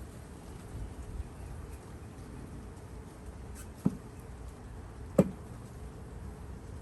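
Honeybees buzzing steadily around an open hive, with two sharp wooden knocks, just under four seconds in and again about a second later, from hive frames being handled against the wooden hive box during the transfer.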